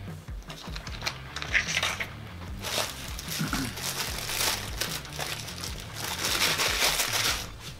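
Paper sandwich wrapper crinkling and rustling in bursts as a wrapped McChicken is picked up and opened.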